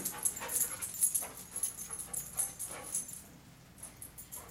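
A dog working a scent search, sniffing in quick bursts with a light metallic jingle from its gear, about four strokes a second, growing quieter near the end.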